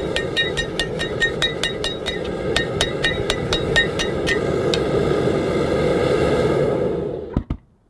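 Hand hammer striking red-hot leaf-spring steel on an anvil, about four to five blows a second, each with a bright ring, stopping about halfway through. A steady forge noise continues under and after the blows, then two knocks just before the sound cuts off abruptly.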